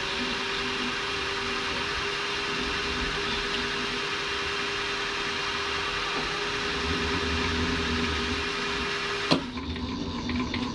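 Benchtop milling machine running, its drill cutting a hole in a small metal part: a steady motor hum with a held whine. About nine seconds in there is a sharp click and the machine sound drops away.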